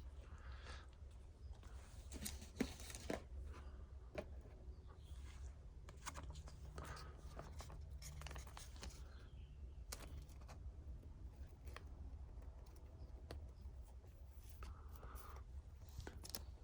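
Faint rustling and light clicks of trading cards being handled and slid into thin plastic sleeves, with a few sharper ticks about two to three seconds in.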